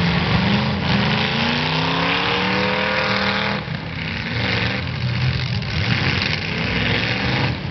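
Demolition derby car engines running loud. One engine revs up steadily for about three and a half seconds, then drops off, and several engines keep running together after that.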